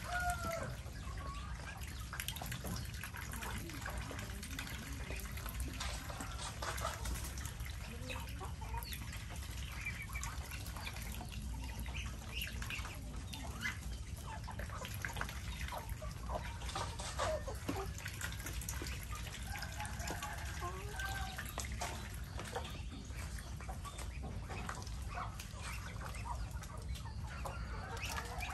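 Farmyard flock of chickens and ducks: hens clucking and ducks calling in short, scattered notes, with soft clicks over a steady low rumble.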